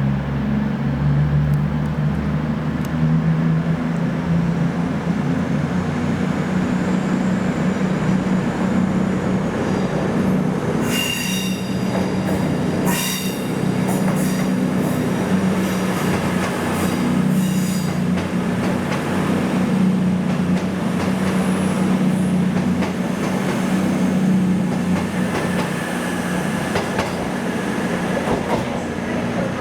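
A train moving through the station with a steady low engine drone. Bouts of high wheel squeal from the rails come from about a third to about halfway through.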